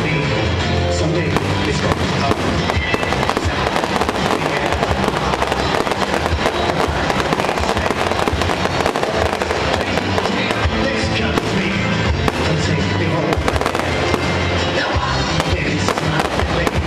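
Fireworks going off in quick succession, sharp bangs and crackles following one another without a break, with music playing underneath.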